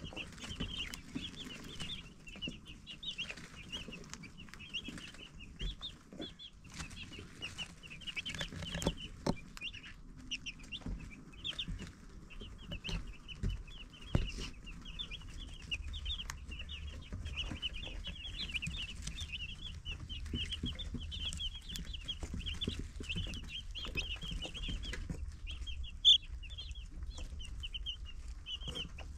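A brood of baby chicks peeping nonstop, many short high chirps overlapping, with one louder peep near the end. A few soft knocks sound among them, and a low hum comes in about halfway through.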